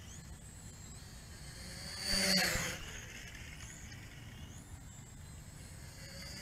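JJRC H11WH toy quadcopter flying, its motors and propellers giving a faint high whine whose pitch shifts as the throttle changes. A louder swell of noise comes about two seconds in and fades within a second.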